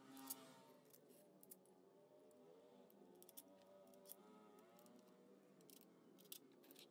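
Near silence, with a few faint scattered metallic clicks as bolts are handled and started by hand into a Honda scooter's CVT cover.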